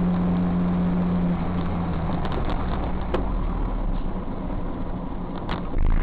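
Road vehicle running: steady engine and road noise with a low hum that fades after about a second and a half, a few light clicks, and a short loud thump near the end.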